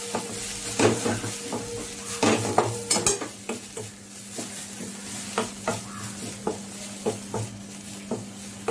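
A flat spatula stirring and scraping fried radish greens around a metal kadai, in irregular scrapes and taps over a light sizzle. The gas has just been turned off. The strokes are strongest in the first three seconds, then lighter.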